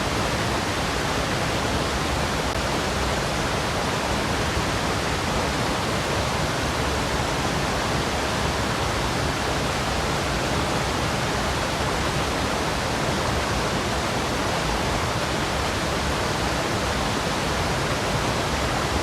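A waterfall rushing steadily: an even, unbroken roar of falling water.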